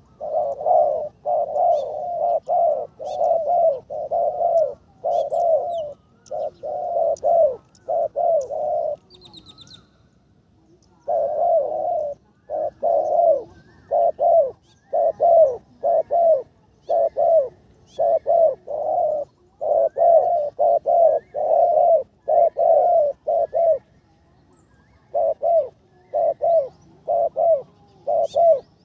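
Spotted dove cooing, close and loud: runs of short, quick coos in long series, with a pause about ten seconds in and another near the end.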